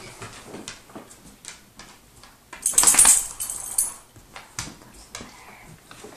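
Scattered light clicks and taps of a Belgian hare's claws and feet on a hardwood floor as it hops about, with one loud scuffing rustle about three seconds in.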